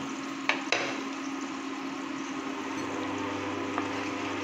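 Steady hum of an induction cooktop running under a frying pan of peas and onion paste, with faint frying from the pan and two light clicks about half a second in. A second, lower hum joins about three seconds in.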